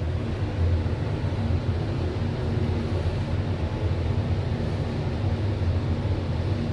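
Steady low hum and rumble inside a small old passenger lift car as it travels down.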